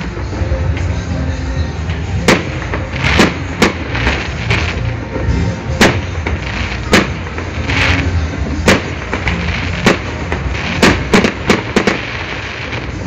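Fireworks bursting overhead: a dozen or so sharp bangs at irregular intervals, several in quick succession near the end, over a steady low rumble.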